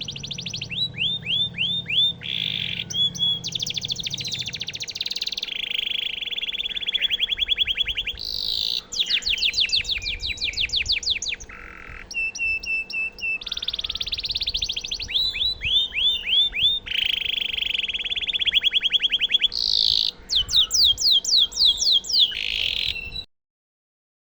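Domestic canary singing a long, continuous song of fast trills and rapidly repeated rolled notes, high-pitched, one phrase running straight into the next; the song cuts off suddenly near the end.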